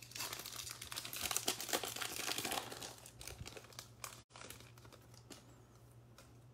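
Foil pack of football trading cards being torn open, the wrapper crinkling and tearing, loudest in the first three seconds. It fades to softer rustling as the cards come out of the wrapper.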